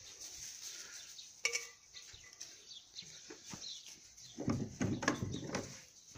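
A wooden rabbit hutch being handled and opened: a sharp metal latch click with a brief ring about a second and a half in, then scattered knocks, and a burst of wooden door and wire-mesh panel rattling and knocking near the end.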